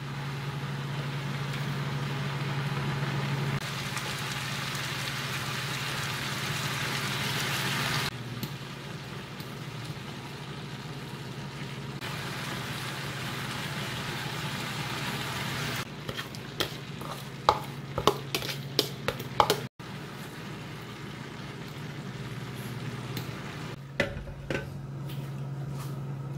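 Potatoes and onions sizzling in oil in a frying pan. From about two-thirds of the way in, a metal spoon scrapes and clinks against the pan in a run of sharp clicks, and a steady low hum runs underneath.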